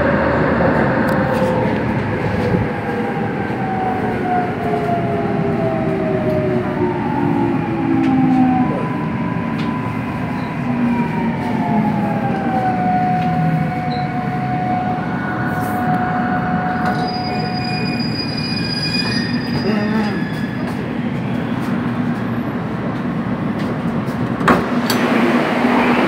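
Korail Class 351000 electric train slowing on the approach to a station, heard from inside the car: several motor and inverter tones glide down in pitch over the first dozen seconds as it brakes, over a steady rumble of wheels on rail. Steady tones hold after that, and a sharp knock comes near the end.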